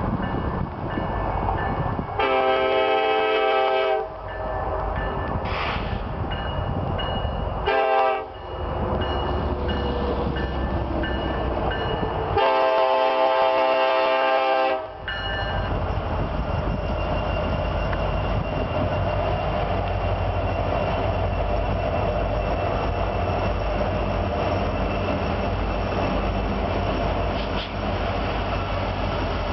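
Multi-chime air horn of a BNSF GE C44-9W diesel locomotive sounding three blasts for the grade crossing: a long one about two seconds in, a short one near eight seconds, and a longer one from about twelve to fifteen seconds. After that comes a steady rumble of diesel engines working under load as the locomotives of a loaded grain train pass on the grade.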